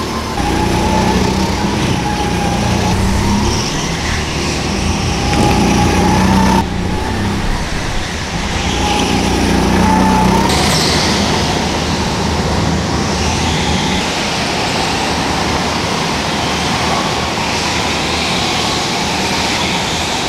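Go-kart engines running and revving as karts pass on the track, the engine pitch rising and falling.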